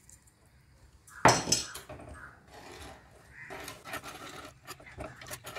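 A single sharp knock of a utensil against the pan about a second in, then a steel spoon stirring and scraping through the red chilli masala in the pan, mixing in the salt just added.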